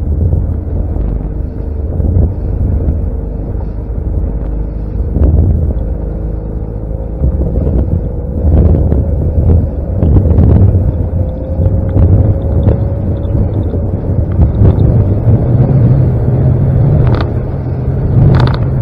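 Motorboat under way at speed: the engine's steady low drone with a faint whine above it, wind buffeting the microphone, and the hull slapping on the chop, with splashes of spray near the end.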